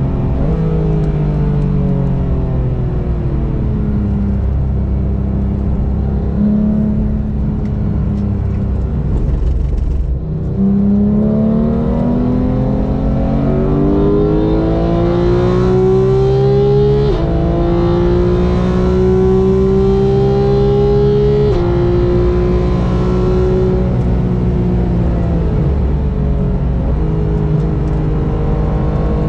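Sports car engine on a race circuit, lapping hard: the engine slows early on, then pulls up through the revs from about ten seconds in, with upshifts about seventeen and twenty-one seconds in, and slows again near the end as the car decelerates.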